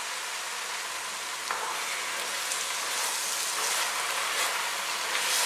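Vegetables and canned diced tomatoes sizzling as they sauté in oil in a pot. The sizzle grows louder about a second and a half in, while a spatula stirs through the mix.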